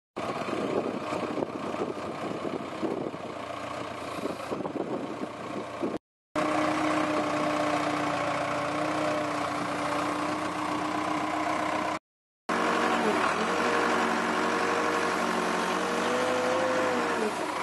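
Diesel engine of a Case backhoe loader running with a steady hum as it pushes a floating dock section into the water, its pitch dipping and rising a few times in the last few seconds as the load changes. The sound breaks off into silence twice, briefly.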